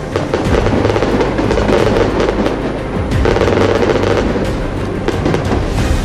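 Aerial firework shells bursting in quick succession, with dense, continuous crackling and popping.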